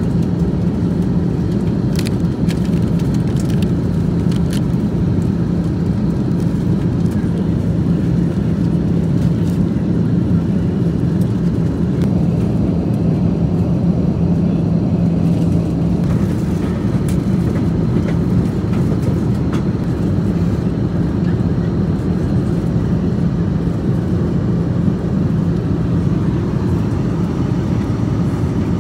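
Steady cabin noise aboard an Airbus A330-300 airliner: an even engine and airflow rumble and hiss with a low steady hum.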